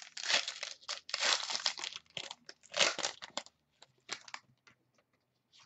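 Thin clear plastic crinkling as a trading card is handled in its plastic sleeve, in four irregular rustling bursts, the loudest about three seconds in, followed by a few small clicks.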